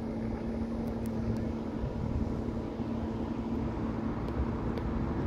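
Steady engine drone with a constant low hum under an even rushing of wind and water.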